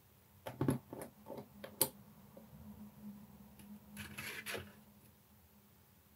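Hands handling plastic model parts: a quick run of light clicks and taps in the first two seconds, the sharpest just before the two-second mark, then a brief rubbing scrape about four seconds in as a styrene rod pipe is pushed into place against the tank.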